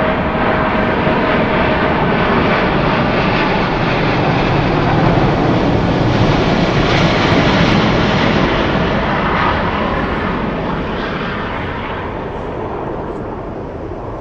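Airbus A350-1000 arriving, its Rolls-Royce Trent XWB-97 turbofans heard as a loud, even jet roar. The roar builds to its loudest about halfway through as the airliner passes, then slowly fades.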